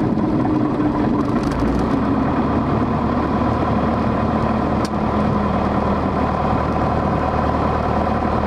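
Single-engine light airplane's piston engine and propeller idling steadily during the landing rollout, heard from inside the cockpit. A brief click about five seconds in.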